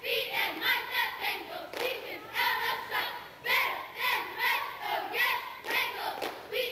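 A squad of young cheerleaders shouting a cheer in unison, a rhythmic chant of several syllables a second.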